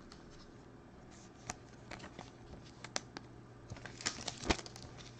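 2020 Panini Prizm football trading cards being handled and set down on a tabletop: a scatter of light clicks and rustles of card stock, busiest about four seconds in.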